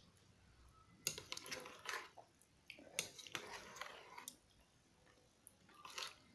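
Close-miked chewing and wet mouth noises of someone eating tteokbokki rice cakes, in three bursts of clicks and smacks with quiet gaps between.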